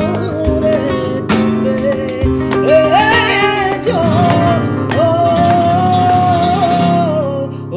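Flamenco-style background music: guitar with a wavering melody line over it, holding one long note near the end.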